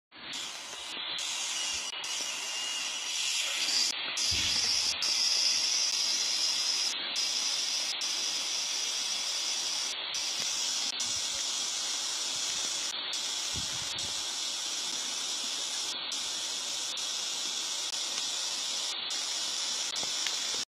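Steady hiss that starts and cuts off abruptly, with two faint low rumbles about four and thirteen seconds in.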